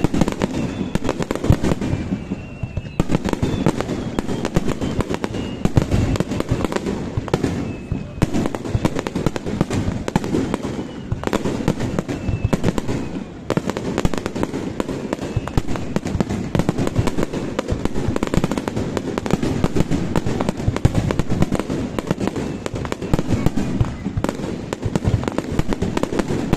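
Aerial firework shells bursting in a dense, unbroken finale barrage: overlapping deep booms and crackling, with a few faint whistles from rising shells here and there.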